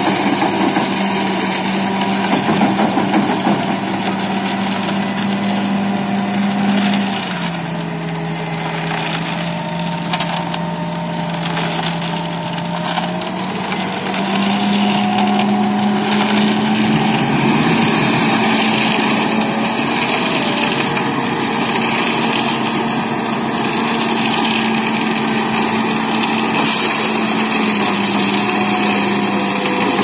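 Diesel engine of an Ajax self-loading concrete mixer running steadily under hydraulic load. Its speed drops about seven seconds in and picks up again about seven seconds later. Gravel grates under the loading bucket as it scoops the pile.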